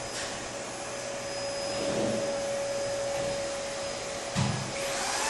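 A steady motor running with an even whine and hiss. A low thump comes about four and a half seconds in, and near the end the hiss grows and the whine rises in pitch.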